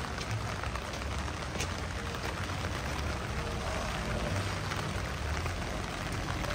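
Steady rain on a wet city street: an even hiss with a few sharper drop ticks, over a low rumble of traffic.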